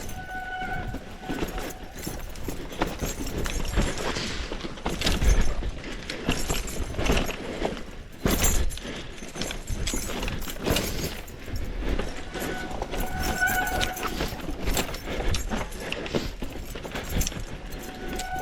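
Mountain bike rattling and clattering over rough trail on a descent, irregular knocks over a low rumble, with two brief high squeals, one near the start and one about two-thirds through.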